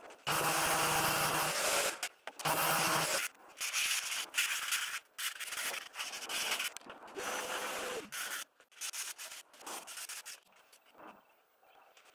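Thin laser-cut plywood worked by hand: a utility knife scraping through it, then sandpaper rubbed over the pieces in short back-and-forth strokes to take off burn marks. The strokes come in bursts, loudest at the start and growing sparser and quieter toward the end.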